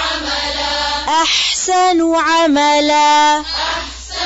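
A woman reciting the Quran melodically with tajweed: long held notes with rising and falling pitch glides, in the style of tilawah.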